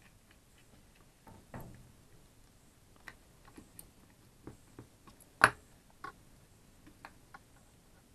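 Small scattered clicks and taps of a plastic handheld two-way radio case and its wires being handled and fitted together, with one sharper, louder click about five and a half seconds in.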